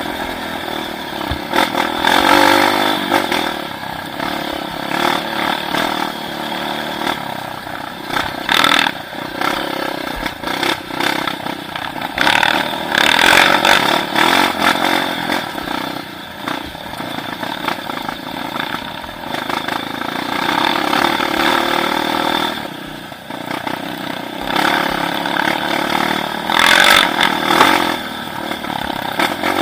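Motorcycle engine running under way, its pitch and loudness rising and falling with the throttle.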